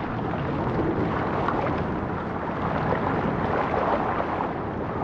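Underwater ambience: a steady, even rushing noise with no separate events.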